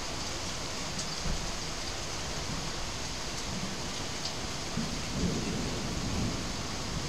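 Steady rain falling, with a low rumble of thunder swelling about five seconds in. A few faint ticks of drops sound over the rain.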